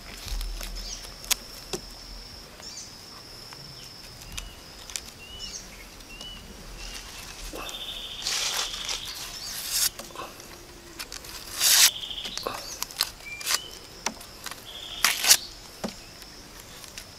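Dry, papery skin of a red onion crackling and tearing as it is peeled off by hand, in a few loud bursts, over birds chirping and a steady high insect drone.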